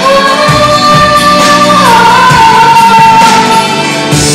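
Pop song: a woman sings one long held note into a handheld microphone, dropping to a lower note about two seconds in, over amplified backing music.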